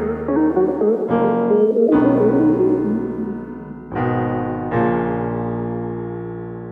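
Background music played on a keyboard with a piano sound: a moving melody, then a held chord struck about four seconds in that slowly fades.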